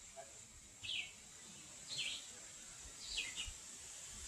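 A songbird calling: short downward chirps about once a second, the last a quick pair, over a faint steady high hiss.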